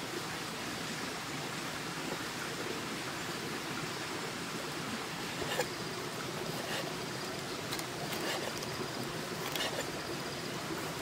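A large cleaver slicing cooked pork on a wooden chopping board. It knocks sharply against the board a handful of times from about halfway through, over a steady background hiss.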